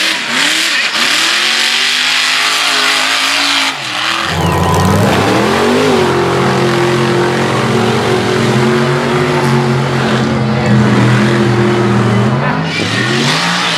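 Mud truck engine revving hard in bursts over the hiss of spraying mud and water. About four seconds in, a second mud truck's engine winds up and holds at steady high revs as it ploughs through a mud pit, then drops off near the end.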